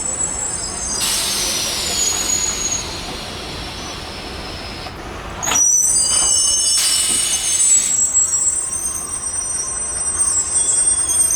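Passenger train coaches rolling past on the track with a high-pitched wheel squeal, louder from about halfway through.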